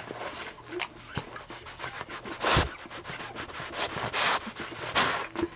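French bulldog puppies nursing: quick wet suckling clicks and snuffling breaths, with three louder snuffles about two and a half, four and five seconds in. Fur rubs and scratches against the microphone.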